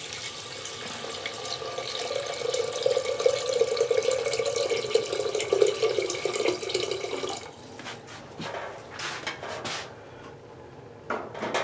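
Water pouring from a kettle into a cast-iron pot of onions in a steady stream for about seven seconds, then stopping. A few light drips and clicks follow.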